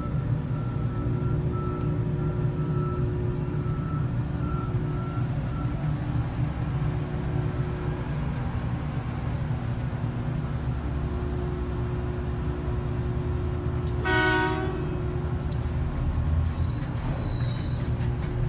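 Steady low drone of a mining power shovel's machinery, heard from inside its cab as it loads a haul truck. One short horn blast sounds about fourteen seconds in.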